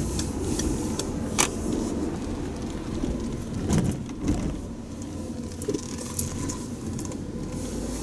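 Inside a car's cabin while driving slowly: a steady low engine and road rumble, with scattered light clicks and rattles.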